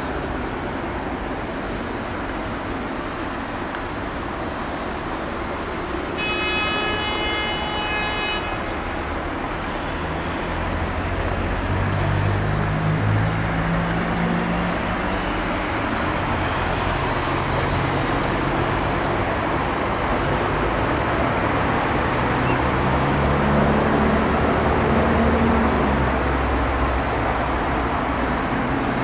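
Road traffic passing steadily, with a horn sounding for about two seconds some six seconds in. Low engine sound rises from vehicles pulling away around the middle and again near the end.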